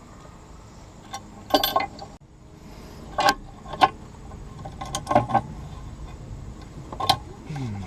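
Small metal parts of an old, rusty sway bar end link (bolt, nuts, washers) clinking against each other as they are handled: about six separate sharp clinks, each with a brief ring.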